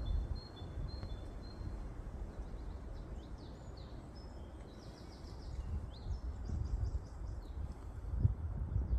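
Songbirds singing. A repeated two-note song stops about two seconds in, and a busier run of high chirps and trills follows in the middle, all over a steady low rumble.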